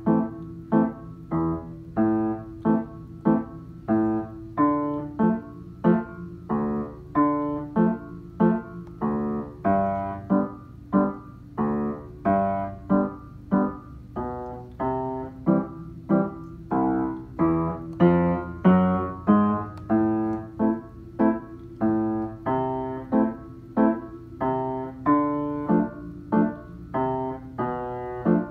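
Piano played with both hands: chords and melody notes struck in a steady, even pulse of about three beats every two seconds, each note ringing and fading before the next.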